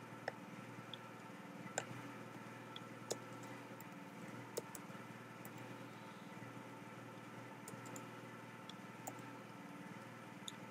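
Faint, irregular clicks of a computer keyboard, about a dozen, as blocks of code are copied and pasted, over a faint steady hum.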